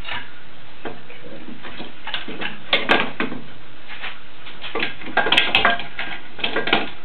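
Metal caulking gun clicking and clattering as it is handled, its trigger and plunger rod rattling in irregular bunches of short clicks.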